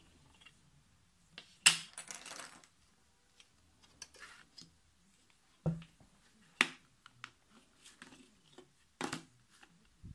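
Clear plastic ruler and set square being put down and shifted on a sheet of paper on a desk: a handful of sharp clicks and taps, the loudest about two seconds in, followed by a brief scraping slide.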